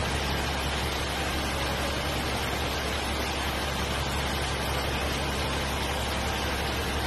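A truck-mounted manlift's engine and hydraulics running steadily, a low hum under an even hiss, as the boom moves.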